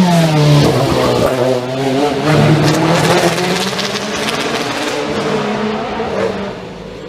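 Race car engine at full racing load: the revs fall steeply at the start, hold low, then climb again about two seconds in, with further rises and drops through the gears before the engine fades near the end.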